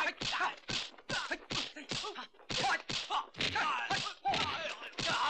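Rapid exchange of dubbed kung fu fight sound effects: sharp whacks of punches and blocks landing several times a second, mixed with the fighters' short grunts and shouts.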